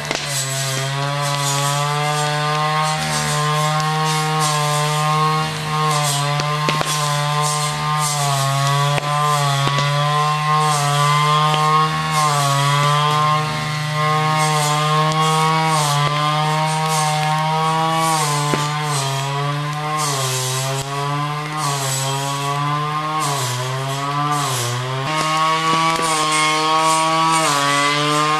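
Chainsaw running at high speed, cutting wood; its engine pitch sags under load and recovers several times, dropping most a few seconds before the end.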